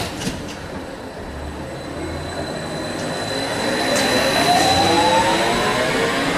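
SEPTA New Flyer trackless trolley (electric trolleybus) accelerating away close by: its traction motor whine rises in pitch from about three seconds in, over a steady high whine from its electrics, loudest as the bus passes.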